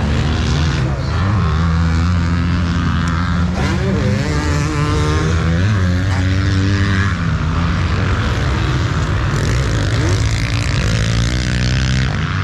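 Motocross dirt bike engine under race throttle, its pitch rising and falling repeatedly as it revs up and down through the gears.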